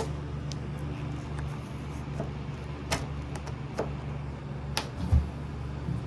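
Claw hammer chopping and prying into a pine board to dig out embedded metal: several sharp knocks, the heaviest a dull thump about five seconds in, over a steady low hum.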